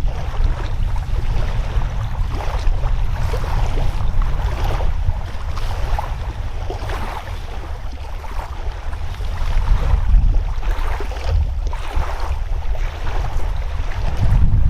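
Wind buffeting the microphone: a steady low rumble with washes of noise that swell and fade.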